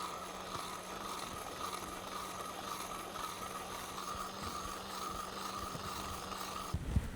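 Campfire burning with faint crackling, under a steady faint high tone. The tone cuts off just before the end, where low knocks begin.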